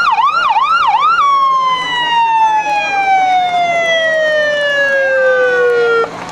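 Fire engine siren passing close by. It yelps in quick rising-and-falling sweeps for about a second, then slides down in one long falling tone that cuts off suddenly near the end.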